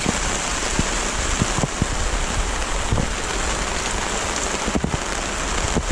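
Steady, persistent rain, with louder single drops striking close by at irregular moments.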